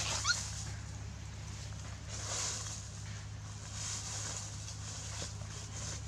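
A puppy gives one short, rising whimper just after the start. Later come two soft rustles of dry leaves underfoot, over a steady low hum.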